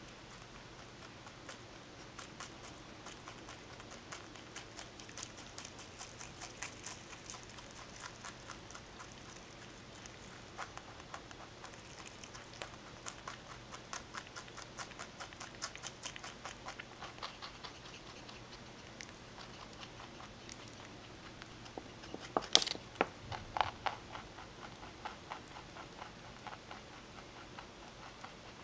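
Mini Rex rabbit chewing fresh cilantro: a fast, even run of crisp clicks from its teeth working the stems. The chewing thins out after about two-thirds of the way through, with one louder short cluster of clicks, and stops a few seconds before the end.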